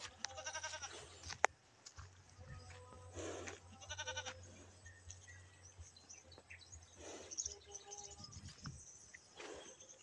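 A goat bleating twice, a short wavering call about half a second in and another about four seconds in, with one sharp click between them.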